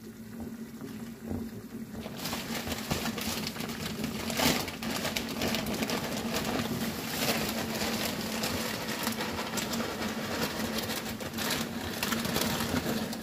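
Broth with sliced vegetables bubbling at a boil in a frying pan. The bubbling grows much louder about two seconds in and goes on as a dense crackle over a steady low hum.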